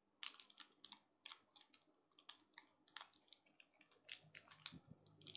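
Faint, irregular wet clicks of a cat chewing a meat-stick treat.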